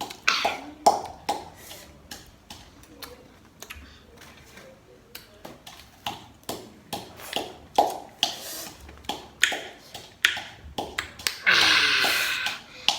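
Close-up mouth sounds of someone eating raw Marian plum with chillies: bites and chewing with many sharp wet clicks. Near the end comes a loud breathy sound lasting about a second and a half.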